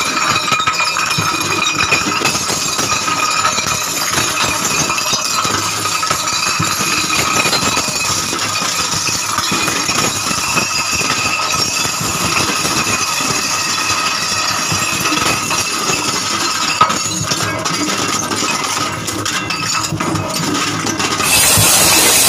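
Electric pan mixer for brick mortar running, its heavy roller and scraper arms crushing glass beer bottles in the steel pan: a steady motor whine under constant clinking and crunching of broken glass. Shortly before the end it gives way to a louder hiss.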